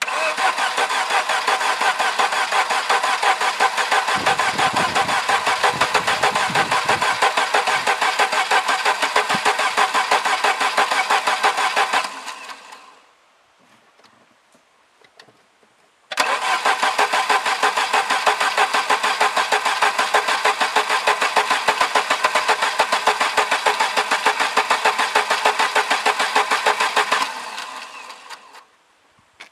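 A Volvo 740's engine, long unused, being cranked over on the starter twice. Each attempt is about eleven or twelve seconds of steady, rhythmic churning that then winds down, with a pause of a few seconds between. The engine does not keep running, and another attempt follows.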